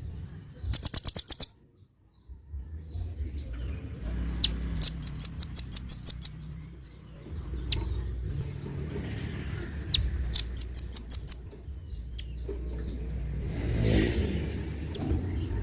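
Velvet-fronted nuthatch calling: three rapid, harsh trills of high sharp chit notes, each about a second long and several seconds apart. A steady low rumble runs underneath.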